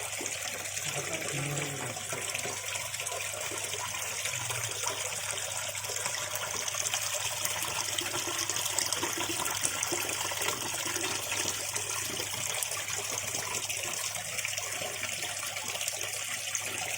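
Water running and splashing steadily and evenly, without a break.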